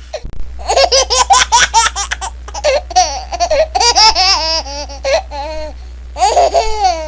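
A baby laughing in a run of short, high-pitched bursts, with a steady low hum underneath.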